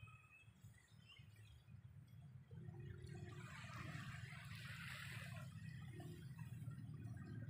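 Faint seaside ambience: small waves washing on the sand over a low wind rumble, growing louder about a third of the way in.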